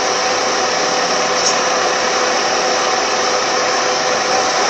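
Car air-conditioning blower running steadily: an even rush of air with a faint steady hum in it.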